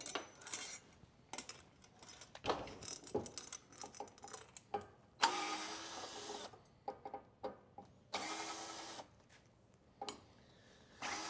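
Scattered clicks and clinks of hand work on a bicycle in a repair stand, then three short bursts of a steady mechanical buzz about five, eight and eleven seconds in, each starting and stopping abruptly.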